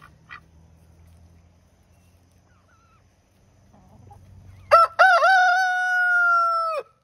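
Rhode Island Red cross rooster crowing once, a single loud cock-a-doodle-doo starting about five seconds in: a short broken opening, then a long held note of about two seconds that drops off at the end.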